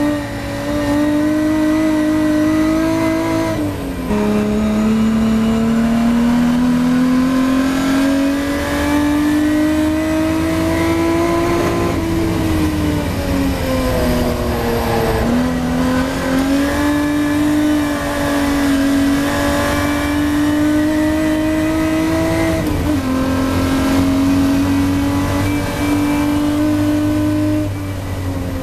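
Ford Capri race car's V6 engine under hard acceleration, heard from inside the cockpit. The pitch climbs steadily and drops sharply at an upshift about four seconds in and again about three-quarters of the way through, and falls away as the car slows around halfway before picking up again.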